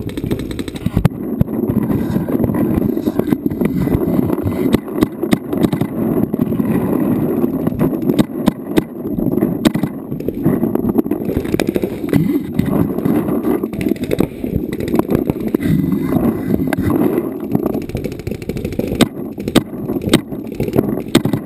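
Paintball markers firing in scattered pops, with a cluster of rapid shots near the end, over a steady low rumble.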